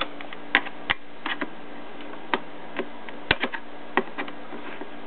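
Irregular sharp metallic clicks and taps, about a dozen, from old O27 model-train track being handled and worked with hand tools, over a faint steady hum.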